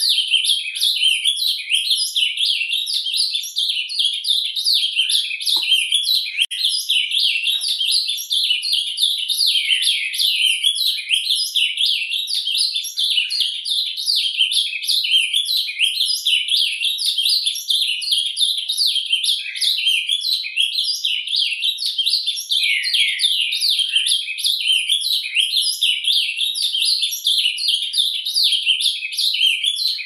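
An ultramarine grosbeak (azulão) singing its surdina, the soft subsong: a continuous, rapid twittering warble of short chirps that runs on without pauses.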